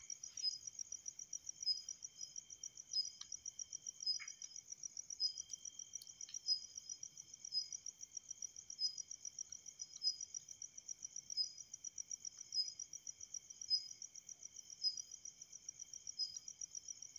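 Insects trilling steadily in a high, fast-pulsing note, with a sharper chirp repeating about every second and a quarter. A few faint clicks come in the first seven seconds.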